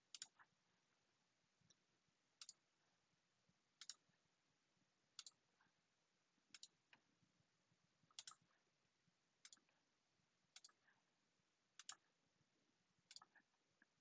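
Computer mouse clicking: about ten sharp, isolated clicks, roughly one every second and a half, some as quick double clicks, against near silence.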